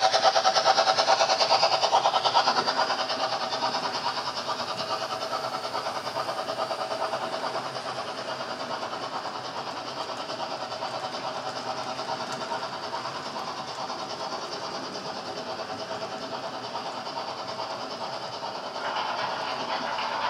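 HO-scale model BR 50 steam locomotive and its tank wagons running past on the track, with a steady motor whine and a fast, even rhythm of wheels on rail. It is loudest as the locomotive goes by at the start and gets quieter as the wagons follow, then rises again near the end.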